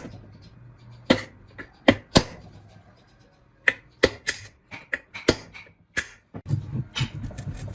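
A string of irregular sharp clicks and knocks, about a dozen over several seconds, as of hand tools and metal parts being handled while an old water pump is worked on.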